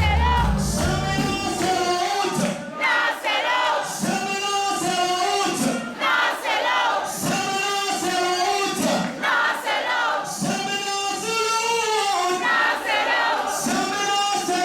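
Gospel choir singing together, with the deep bass of the backing band dropping out just after the start so that the voices carry on with little beneath them.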